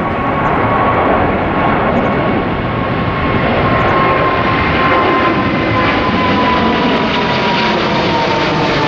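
Boeing 777 twin-engine jet airliner climbing out at takeoff thrust: a loud, steady jet roar with a high whine that slowly drops in pitch as the aircraft passes overhead.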